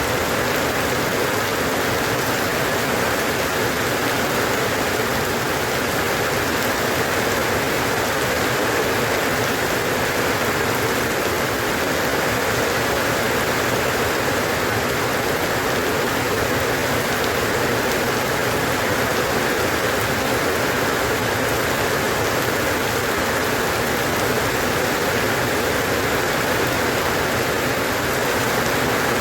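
Steady, even rainfall, a continuous hiss of rain with no breaks or changes in level.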